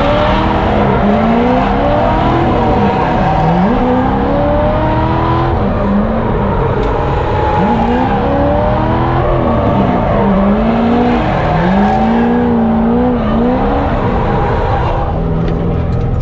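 Drift car engine revving hard, its pitch climbing and dropping again and again as the throttle is worked through a drift run, over a haze of tyre noise. Near the end the revs settle to a steadier, lower note.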